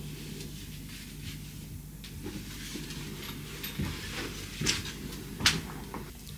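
Clothing rustling and belongings being handled, with a few light knocks and clicks in the second half over a low steady hum.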